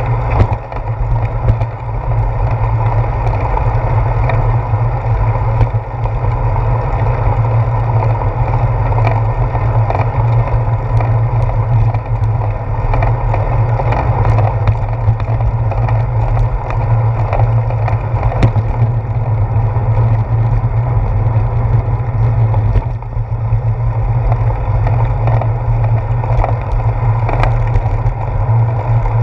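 Steady, loud rumble of wind and road vibration picked up by a handlebar-mounted GoPro Hero 4 on a moving bicycle, with a few faint clicks.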